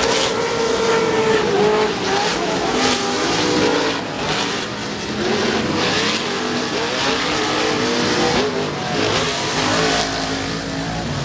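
Off-road racing truck engines revving, their pitch rising and falling over and over as the trucks accelerate and back off. There are several short rushes of noise in between.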